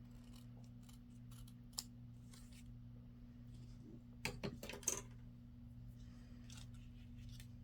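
Scissors snipping paper in a few short cuts, with a quick cluster of snips about four to five seconds in. A low steady hum sits underneath.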